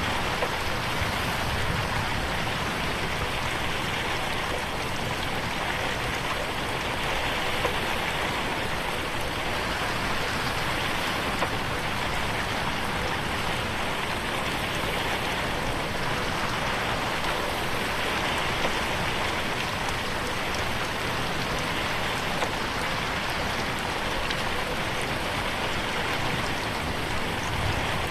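Steady rain falling, with scattered drops ticking on a window pane.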